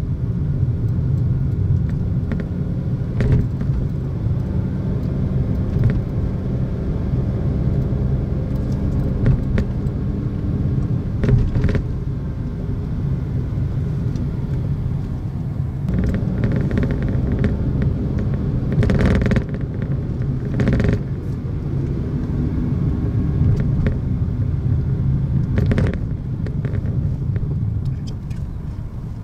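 A car driving, heard from inside the cabin: a steady low rumble of engine and tyres on the road. About two-thirds of the way through there are a few short, louder rushes of noise.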